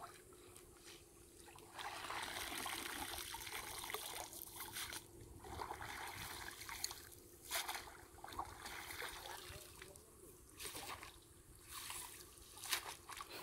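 Faint shallow stream water trickling and splashing over rocks, with irregular sharper splashes now and then.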